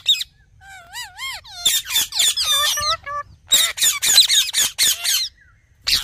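Indian ringneck parakeets calling: a wavering, warbling call about a second in, then two runs of harsh, rapid squawks and screeches, and one more squawk near the end.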